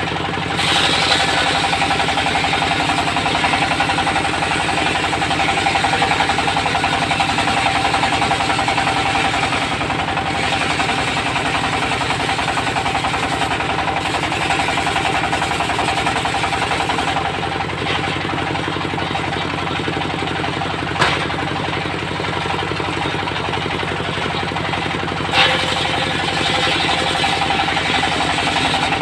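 Diesel-driven circular sawmill running steadily: a fast engine knock under a held whine from the spinning blade as it saws teak. Two sharp knocks come in the second half.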